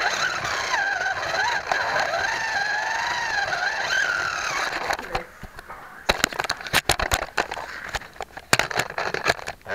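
Scalextric slot car's small electric motor whining, heard from a camera riding on the car, its pitch wavering up and down with the throttle. The whine cuts off about five seconds in, as the car comes off the track, and scattered clicks and knocks follow.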